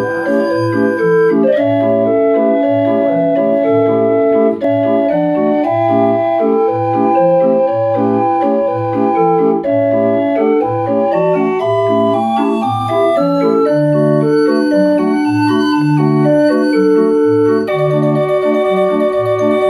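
Small hand-cranked Dutch street organ (draaiorgel) playing a tune through its pipes, a regular repeating bass beat under chords and melody.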